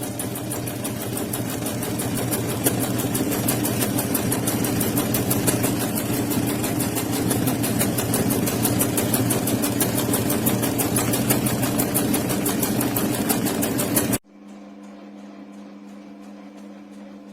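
Singer Starlet 6660 electronic sewing machine running at a steady speed, stitching with a fast, even rhythm. It stops abruptly about 14 seconds in, leaving a much quieter steady hum.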